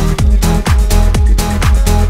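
Electronic dance music with a steady kick drum, a little over two beats a second.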